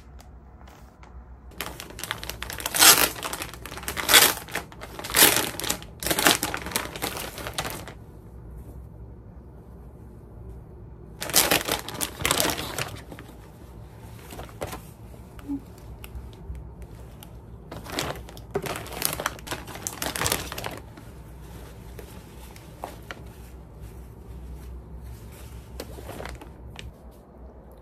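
Clear plastic clothing bags crinkling and rash-guard fabric rustling as the garments are unpacked and handled. The noise comes in three loud spells: one from about two seconds in lasting several seconds, a shorter one near the middle and another about two-thirds through, with quieter rustling between.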